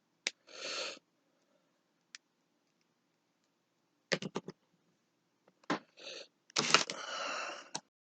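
Plastic action figures being handled: irregular clicks and light knocks of hard plastic, in small clusters, with a few short rustling scrapes between them.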